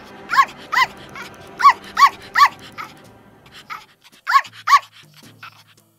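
Small dog yapping: short high-pitched yaps, mostly in quick pairs, with a pause before the last two. Soft background music plays under the first part.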